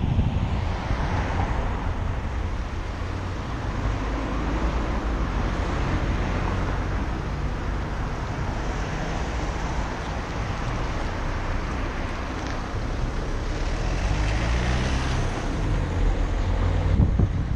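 Car driving along a street, heard through a GoPro Hero Session mounted on the outside of the windshield: steady wind and road noise over the engine's low hum, which rises slightly in pitch near the end.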